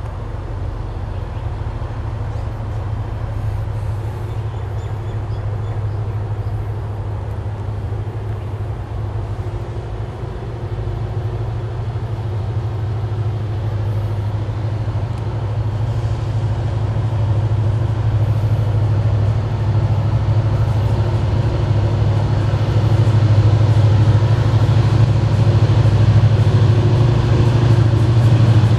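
Diesel-electric locomotive of the State Railway of Thailand approaching with its train, its engine running as a steady low drone that grows steadily louder as it comes closer.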